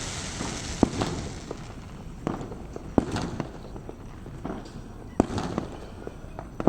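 Fireworks going off: scattered sharp bangs and pops at uneven gaps over a steady background of noise.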